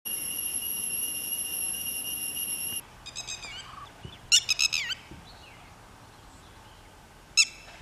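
A steady high-pitched tone that cuts off suddenly about three seconds in, then red-wattled lapwing calls: a quick series of sharp, strident notes around four seconds in and another series near the end.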